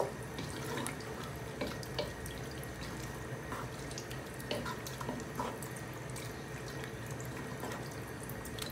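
Evaporated milk poured from a can into a pot of thick cream sauce while a wooden spoon stirs it: a soft steady trickle of liquid with scattered small clicks of the spoon.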